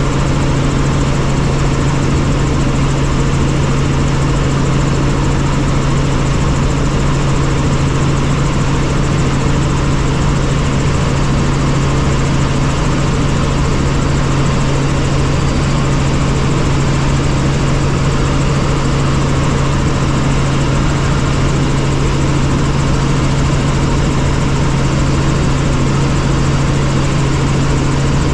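Helicopter running steadily: a loud, even drone of turbine and rotors with a constant low hum.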